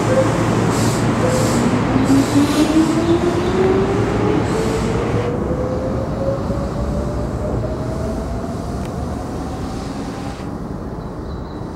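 Keihan 1000 series electric commuter train accelerating out of the station: the motor whine climbs steadily in pitch as it gathers speed, over wheel and rail noise. In the first few seconds the wheels clack over rail joints at a regular beat.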